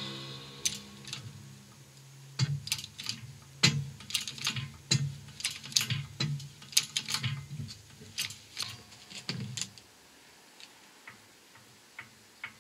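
Ringing from a metal bang on the hydraulic press fades over the first two seconds. Then come irregular light metallic clicks and knocks, several a second for about seven seconds, as the 6-ton hydraulic shop press lever is worked against an old wheel bearing stuck in its hub.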